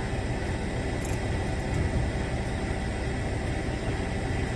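Heavy diesel engine running steadily, a low rumble with a faint steady whine above it.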